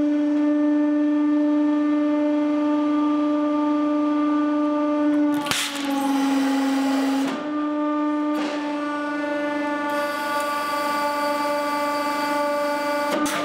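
Hydraulic press pump running with a steady, pitched drone while the ram crushes a CO2-powered airsoft pistol. About five and a half seconds in there is a sharp crack, then about two seconds of hissing while the drone sits a little lower in pitch. Softer cracks follow about three seconds later and near the end.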